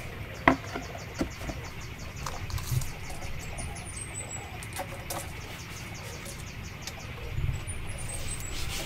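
A heavy wooden slab set down on a wooden plank tabletop with one sharp knock about half a second in, followed by a few lighter knocks as it is handled. A small bird sings short, descending twittering phrases twice in the background.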